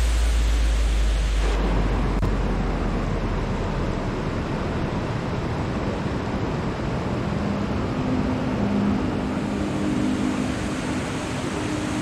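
Steady rushing of water spilling over a small rock cascade in a shallow mountain stream. Background music ends about a second and a half in.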